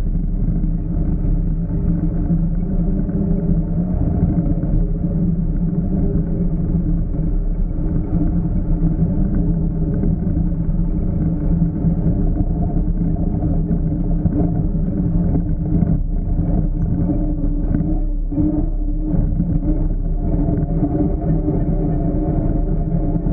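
Side-by-side off-road vehicle engine running steadily at an even pitch, with a few brief knocks and dips about three-quarters of the way through.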